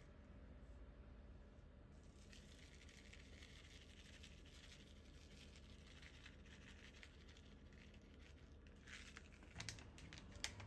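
Very faint, light rustling patter of dried aonori seaweed flakes being shaken from a packet onto an okonomiyaki, starting about two seconds in, with a few small clicks near the end.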